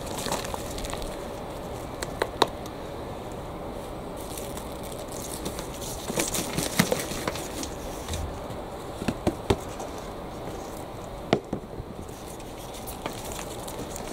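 Compost being tipped out of a black plastic plant pot into a wheelbarrow and crumbled apart by gloved hands: a scatter of sharp knocks and taps among soft rustling and crumbling of soil.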